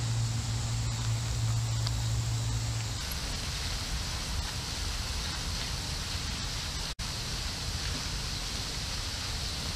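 Steady outdoor background noise, an even hiss with no distinct events; a low steady hum stops abruptly about three seconds in, and the sound drops out for an instant about seven seconds in.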